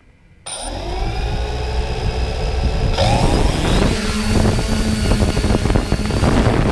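3DR Solo quadcopter's four motors and propellers starting up about half a second in with a rising whine, then a sharp rise in pitch about three seconds in as it throttles up and lifts off the gravel, holding a steady whine while it climbs.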